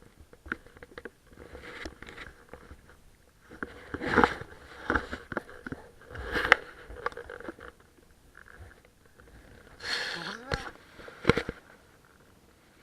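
Irregular knocks, clicks and scraping rustles of fishing gear being handled in a small boat. There are louder clunks about four, six and a half and eleven seconds in, and a short rising squeak near the end.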